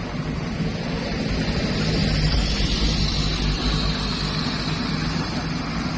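A vehicle engine pulling hard up a steep hill. It grows louder over the first couple of seconds, then runs steadily.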